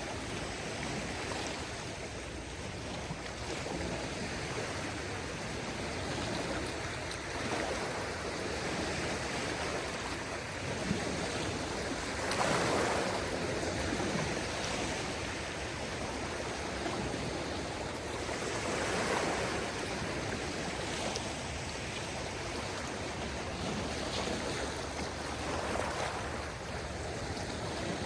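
Small waves on a calm sea washing onto the shore, a steady rush of water with a few louder swells, the clearest about 12 seconds in and again about 19 seconds in.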